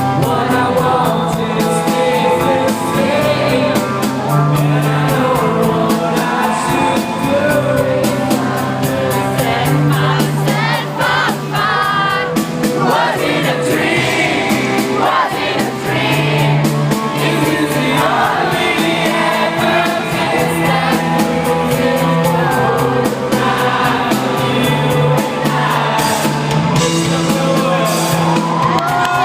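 Live rock band playing a song with singing, over held bass notes that change every second or two.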